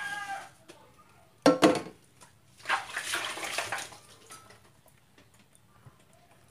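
Dishes being washed by hand at a kitchen sink. About a second and a half in comes a loud, sharp clatter of dishes, then about a second of running, splashing water, then a few faint clinks.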